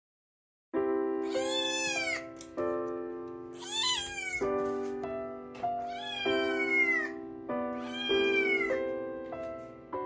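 A munchkin kitten meowing four times, about every two seconds; each meow is high-pitched and rises and then falls. The meows come over background music with sustained chords, which starts about a second in.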